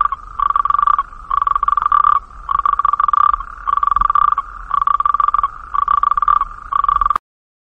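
Amphibian call, frog-like: a rapid pulsed trill at one steady pitch, repeated about eight times, roughly once a second. It cuts off suddenly near the end.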